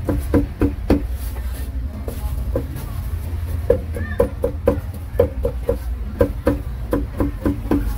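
Runs of quick, sharp knocks, about three a second with short pauses between runs, over a steady low hum.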